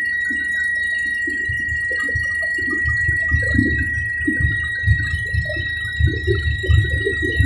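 Helicopter noise: a steady high-pitched whine with an irregular low rumble underneath that grows stronger in the second half.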